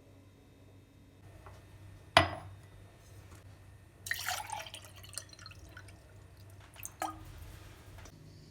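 Kitchen handling sounds: a sharp clink of glass or crockery about two seconds in, then a few seconds of small dripping, splashing liquid sounds, and another clink near the end.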